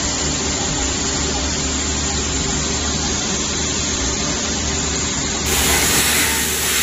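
CNC milling machine cutting a plastic block: a steady hiss of the cutter and air blast over a low spindle hum. About five seconds in the sound changes abruptly to a brighter, slightly louder run of a second machine milling plastic.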